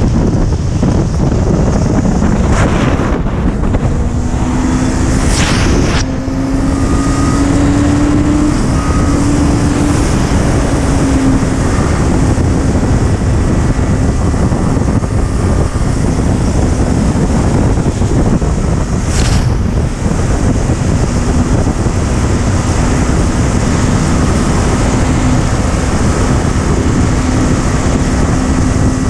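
Heavy wind rush on the microphone of a Honda sport motorcycle cruising at highway speed, with the engine's steady note underneath. The engine note climbs a little about four seconds in and then holds, and a few short gusts buffet the microphone.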